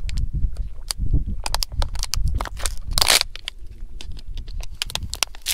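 Thin plastic water bottle being handled: its cap clicks as it is twisted open and the bottle crackles and crinkles in the hand, with a louder crackle about three seconds in. Wind buffets the microphone throughout.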